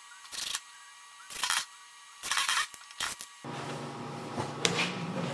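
Cordless drill driving screws into wood in four short bursts, each under half a second, about a second apart. A couple of light knocks follow near the end as the drill is set down on the workbench.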